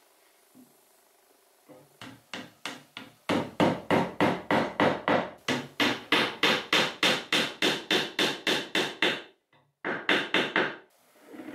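Hammer driving a glued wooden dowel into a hole in the edge of a chestnut-wood cabinet door frame. A few lighter taps lead into a steady run of sharp blows at about four a second, then a short pause and a few more blows near the end.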